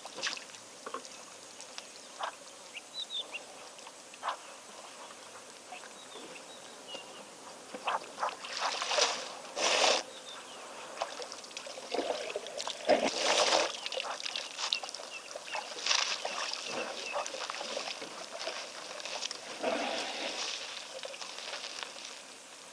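African elephants drinking at a waterhole: water splashing, pouring and dribbling in bursts as they draw it up and spill it with their trunks, the loudest splashes a little under halfway through and in the middle. Faint short chirps of birds come through now and then.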